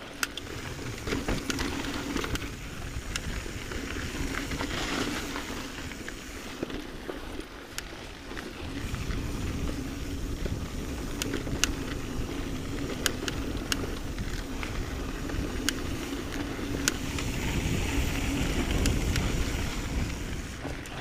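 Mountain bike riding down dusty dirt singletrack: tyres rolling over dirt and loose rock, with sharp clicks and rattles from the bike over bumps and wind rumbling on the microphone. The low rumble grows heavier from about nine seconds in.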